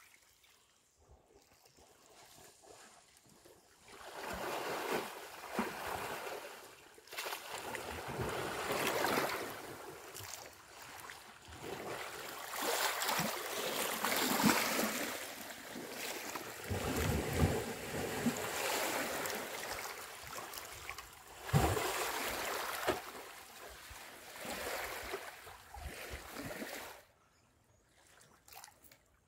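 Water splashing and sloshing in surges as a bull African elephant wallows and rolls in a waterhole close by, starting about four seconds in and dying away shortly before the end.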